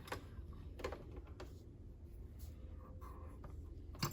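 Faint scratching and scattered light clicks of hands working on a Kenmore sewing machine's parts while cleaning and greasing it, with a sharper click near the end.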